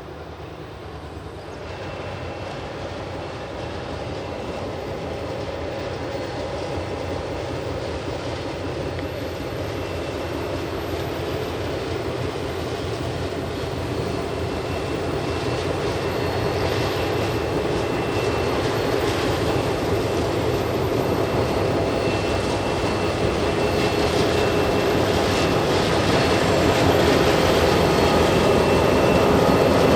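Diesel locomotives of a grain train, led by GM class 42103, approaching and growing steadily louder, with a steady engine drone and rumble.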